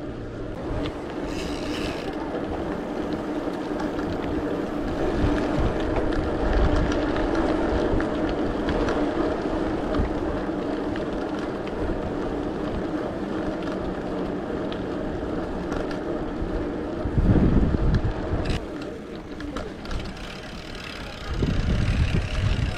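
Mountain bike rolling at speed, with steady tyre hum and wind rushing over the camera's microphone. Two louder, low rumbles of wind buffeting come near the end.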